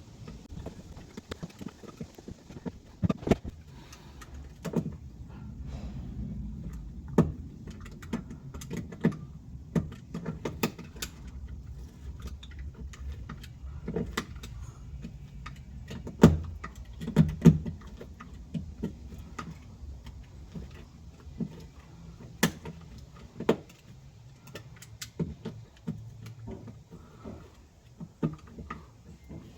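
Irregular clicks and knocks of hand work on parts inside a Land Rover Defender's rear body, with a sharper cluster of knocks about halfway through.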